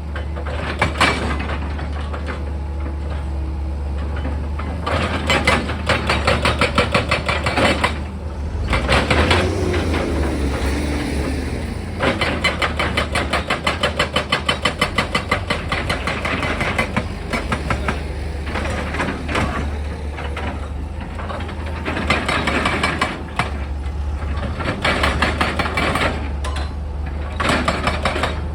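Heavy diesel machinery running steadily, with repeated spells of rapid rhythmic clattering, about four knocks a second, and a brief rise and fall in pitch about ten seconds in.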